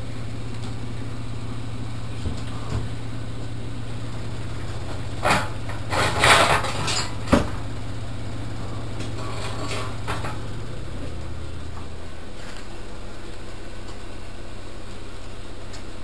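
Washing machine running with a steady low hum that stops about three-quarters of the way through. About five to seven seconds in comes a short run of loud knocks and rattles.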